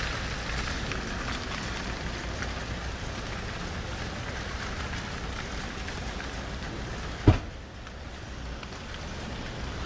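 Steady rain falling on wet pavement, with one sharp knock about seven seconds in.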